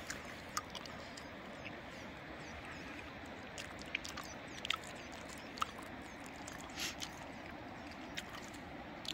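Steady rushing of a river, with a few short wet clicks of chewing close to the microphone scattered through it.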